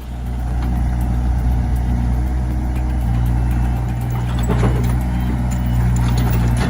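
Heavy machine's engine running steadily at a constant speed, with a deep, even hum.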